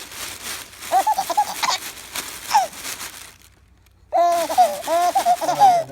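A baby laughing in short bursts of giggles. It falls quiet briefly just past the middle, then breaks into a longer, louder run of high laughter near the end.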